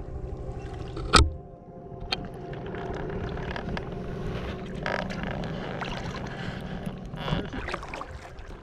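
Sea kayak paddling: water splashing off the paddle blades and lapping at the hull in a steady wash. There is a sharp knock about a second in and a lighter one a second later.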